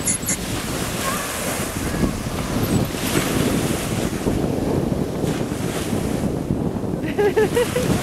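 Small sea waves breaking and washing up on the shore, with wind buffeting the microphone.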